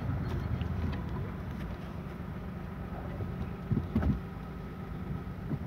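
A car's engine idling as a steady low rumble, heard from inside the cabin, with a few faint knocks about four seconds in.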